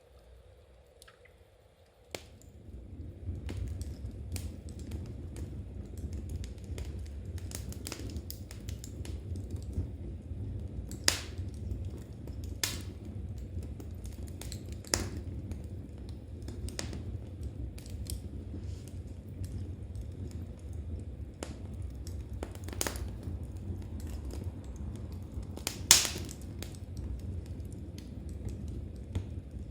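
Wood fire crackling in a fireplace: a steady low rumble with scattered sharp pops and snaps, starting abruptly about two seconds in after near quiet.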